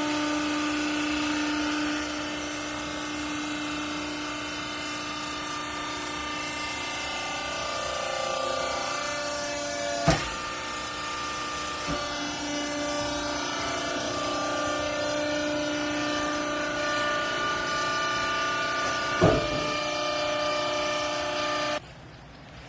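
Hydraulic baler's electric motor and pump running with a steady whine whose pitch shifts a few times, with two sharp knocks, about ten and nineteen seconds in, and then cutting off suddenly near the end.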